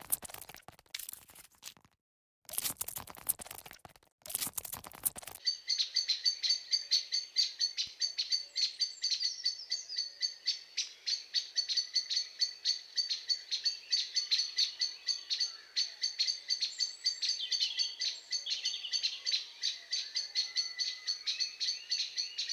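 Short crackly rustling bursts with silent gaps, then from about five seconds in a steady, dense high-pitched chirping that repeats several times a second, with a few falling calls over it.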